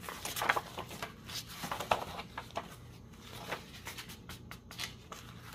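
Sheets of patterned scrapbook paper rustling and sliding against each other as two are pulled from a stack and laid flat on a table by hand, in a series of short, irregular rustles and light taps.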